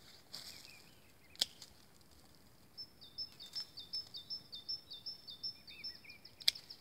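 Two sharp snips of hand pruning shears cutting blueberry canes, one about a second and a half in and one near the end. Between them a songbird sings a quick run of high, repeated chirping notes.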